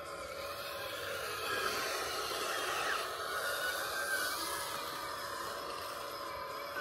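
Hydraulic system of a 1/14-scale full-hydraulic RC CAT 330F excavator whining steadily as it works, with small shifts in pitch midway.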